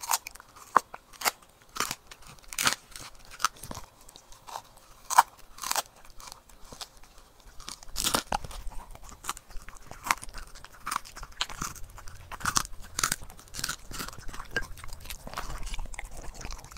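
A corgi crunching and chewing a Vital Essentials freeze-dried raw treat: irregular sharp crunches, one or two a second, coming thicker in the second half.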